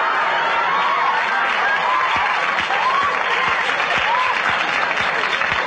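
Studio audience applauding and laughing steadily at a punchline, with scattered voices rising over the clapping.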